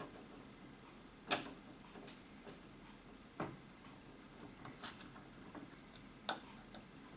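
A few scattered sharp clicks and light knocks, irregularly spaced, over a quiet background.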